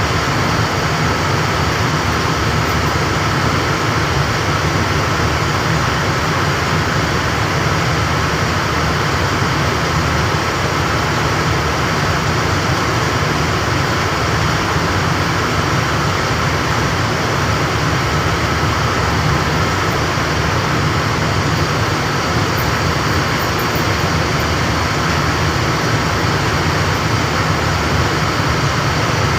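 Steady machinery running without a break, a dense mechanical rumble with a constant thin whine on top.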